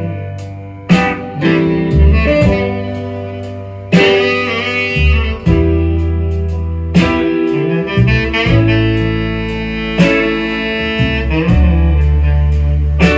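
Recorded music played through a Gradiente Model 160 stereo amplifier and its loudspeakers, picked up in the room: a full band with a strong, steady bass line and sustained notes, a new phrase starting every second or two.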